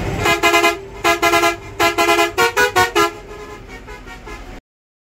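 Bus horn sounded in a rapid string of short toots in two alternating pitches, about a dozen blasts in quick groups. The sound then cuts off suddenly.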